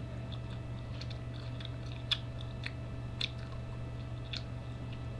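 A person chewing food close to the microphone, with a few sharp crunchy clicks scattered through, over a steady low hum.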